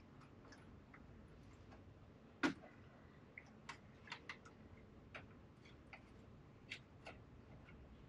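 Faint, scattered clicks and taps of hands pressing optical fibres into a plastic splice tray, with one louder click about two and a half seconds in.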